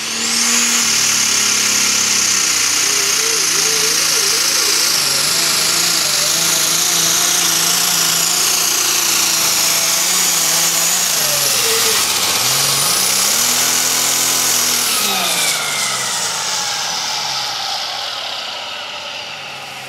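A turbocharged International pulling tractor running at full throttle on a pull, with a loud turbo whine over the engine. Its revs dip and climb again partway through, then fall away as the run ends, and that end did not sound good.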